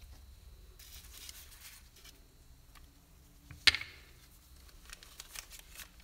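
Soft rustling of parchment paper and gloved hands handling dough, broken by one sharp knock a little over halfway through as a blue-sleeved rolling pin is set down on the countertop.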